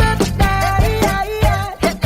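Funk-pop music playing, with a steady drum beat under pitched melody lines.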